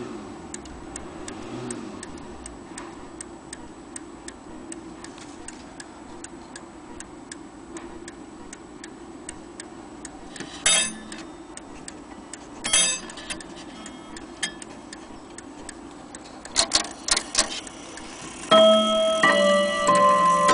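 Gustav Becker Westminster mantel clock movement ticking steadily, about two ticks a second, with a few louder clicks in the middle. Near the end the chime starts, ringing a sequence of notes that hang on.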